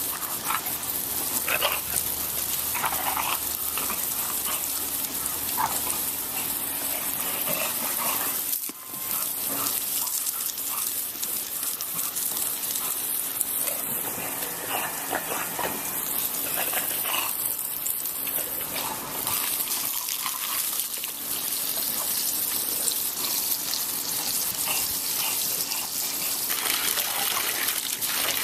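Water spraying with a steady hiss, as from a garden sprinkler or hose, with a dog's brief sounds now and then.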